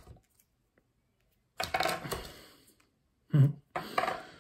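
Apple AirTags and their packaging handled by hand: a short rustle of packaging about one and a half seconds in, then a few sharp clicks and taps of the small hard discs near the end.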